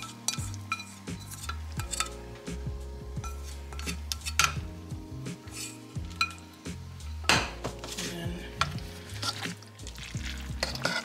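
A whisk scraping and tapping against a skillet as cream sauce is scraped out into a pot of pasta, then a utensil clinking and scraping in the pot as the pasta is stirred through the sauce. The sound is a run of sharp clicks and scrapes.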